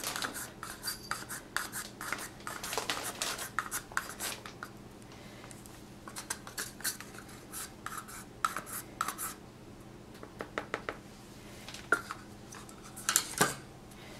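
Handling noises of acrylic paint work: scattered light clicks and rubbing as paint is squeezed from a plastic squeeze bottle onto a canvas and worked with the fingers. There are a few louder knocks near the end, over a faint steady low hum.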